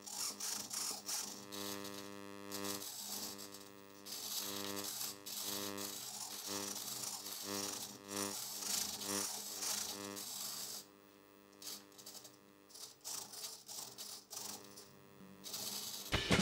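Small hobby servos of a pan-tilt camera mount buzzing in short stop-start bursts as they follow the tilting of the head-tracker board. From about 11 seconds on they are quieter, with only a few faint clicks.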